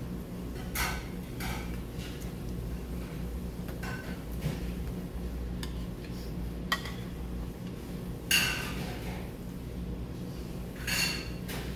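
A metal spoon clinking and scraping against small metal and ceramic bowls while eating: several short, separate clatters a second or more apart, over a steady low hum.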